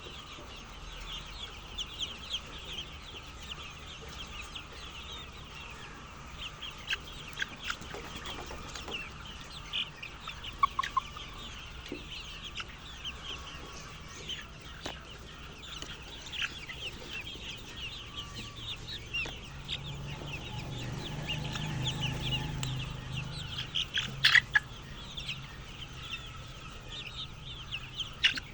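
A flock of chickens clucking and peeping continuously, with many short overlapping calls. A low hum swells and fades about twenty seconds in.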